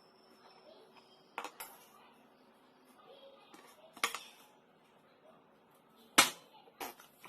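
A few short, sharp clicks and knocks over quiet room tone, from the 2.25 L plastic soda bottle being handled during drinking. The loudest knock comes about six seconds in.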